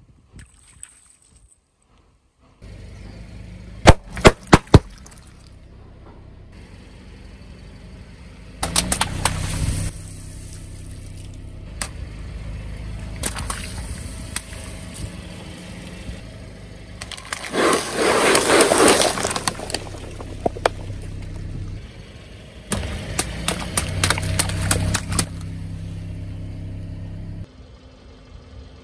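Water-filled balloons bursting under a car's tyre: four sharp pops in quick succession about four seconds in, then several bursts of popping and splashing, the loudest about two-thirds of the way through. A car engine runs steadily at low revs underneath.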